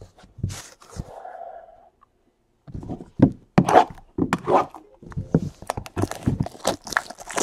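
Hands handling a trading-card hobby box and packs on a tabletop: a few light clicks at first, then from about three seconds in a dense run of knocks, taps and scrapes.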